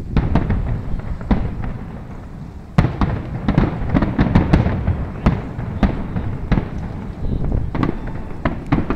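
Aerial firework shells bursting: a string of sharp bangs and crackles, densest from about three to five seconds in.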